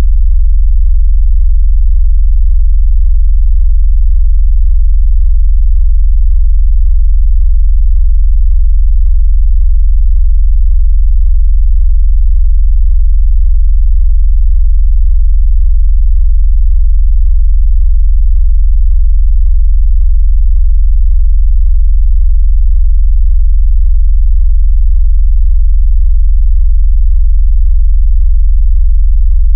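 Steady, very loud, very low synthetic bass tone, an electronically generated sine-like hum well under 100 Hz that holds one pitch without change. It is a phone 'vibration' sound, made to make a phone vibrate and to push water out of its speaker.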